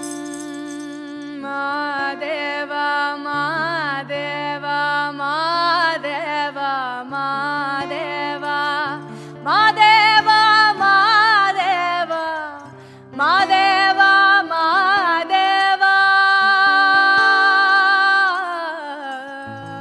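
Kannada folk song: a slow, ornamented melody line, sung, gliding between long held notes over a steady low drone. The line breaks off briefly about halfway, then comes back louder.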